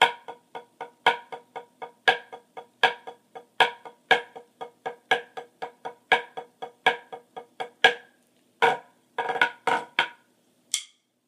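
Wooden drumsticks on a drum practice pad playing an accent-tap exercise: an even run of strokes at about four a second, with loud accented strokes standing out among softer taps. The run stops about eight seconds in and is followed by a few scattered harder hits.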